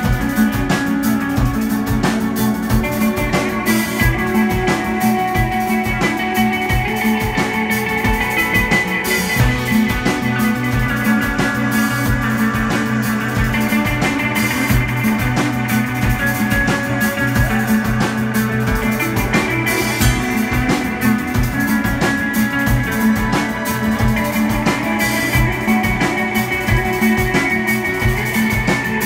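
Live instrumental psychedelic rock: two electric guitars playing over a drum kit, with steady drum hits under sustained guitar lines.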